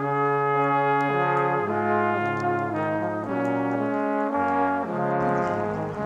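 Background music of slow, sustained chords in a brass-like timbre, moving to a new chord every second or so.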